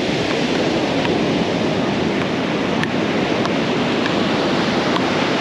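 Steady rush of ocean surf breaking on a beach, with wind on the microphone.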